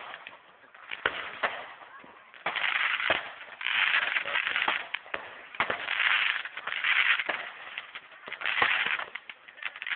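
Fireworks going off at a distance: scattered sharp bangs and pops, with stretches of crackling lasting up to about a second each from a couple of seconds in.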